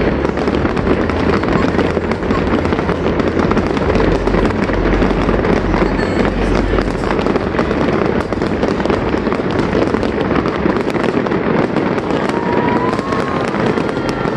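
Aerial fireworks display going off continuously: dense crackling and popping of many shells at once, with deep booming bangs heaviest in the first half.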